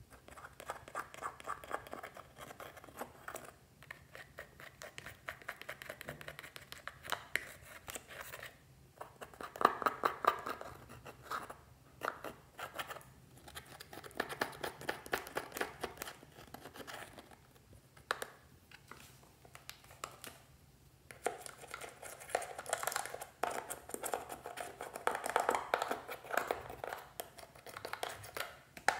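Metal tool scraping and breaking up pressed eyeshadow in a palette pan: dense, dry scratching that comes in bursts of a few seconds with short pauses between.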